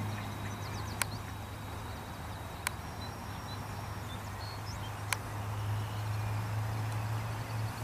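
Outdoor field ambience: a steady low hum, three sharp clicks about one, two and a half and five seconds in, and a few faint high bird chirps.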